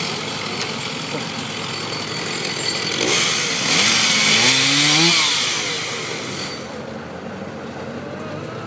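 Stihl 032 AV two-stroke chainsaw running. About three seconds in it gets louder and its pitch rises as it revs up, then about six and a half seconds in it drops back to a lower, steady running.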